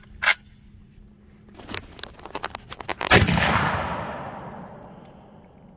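A single AK-pattern rifle shot about three seconds in, its report echoing and fading away over the next two seconds. Before it come a short sharp clack just after the start and a few light clicks.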